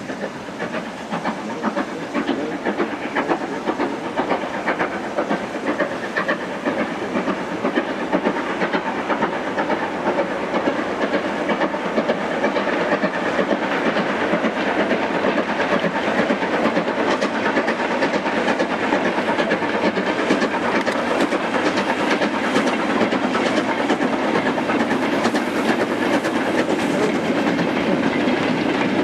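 A steam locomotive working a loose-coupled freight of mineral wagons, its exhaust beats drawing steadily nearer. The wagons' wheels then clatter past over the rails, getting louder toward the end.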